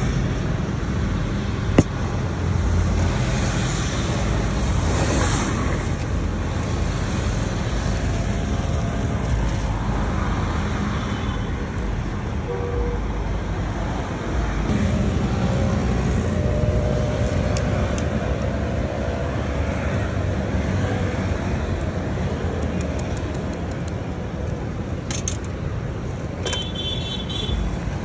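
Steady street traffic noise, with a sharp click about two seconds in.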